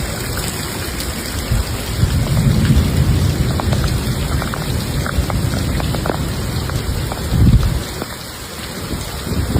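Heavy monsoon rain pouring down, with low rumbling of thunder that swells a couple of seconds in and peaks in a short loud burst about three-quarters of the way through.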